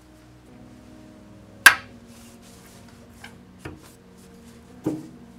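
Countersunk neodymium magnets on wooden toy train cars snapping together with one sharp click about a third of the way in, followed by a few lighter clicks and knocks as the cars are handled.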